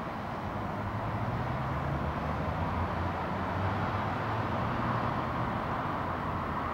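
Distant road traffic on a city avenue: a steady hum of tyres and engines, with a low engine drone rising above it for a few seconds in the middle.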